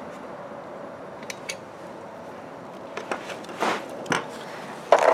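Scattered light clicks, then several sharper metallic clinks and clatters of a socket wrench with extension being handled and set down on a concrete floor, the loudest near the end.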